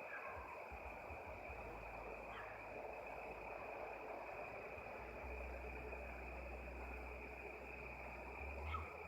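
Faint outdoor background: a steady high-pitched chirring drone over a low rumble, with a few brief chirps near the start, in the middle and near the end.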